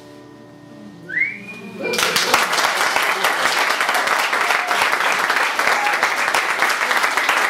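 A final piano chord fading away, then a single rising whistle from the audience, and about two seconds in the audience bursts into applause that keeps going.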